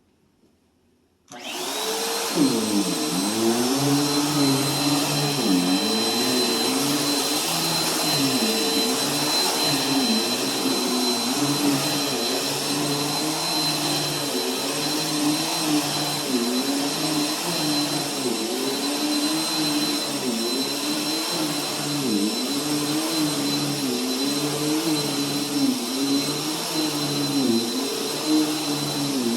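Bissell bagless vacuum cleaner switched on about a second in, then running with a steady high whine as it is pushed back and forth over carpet. Its low hum dips and rises with each stroke, about every two seconds.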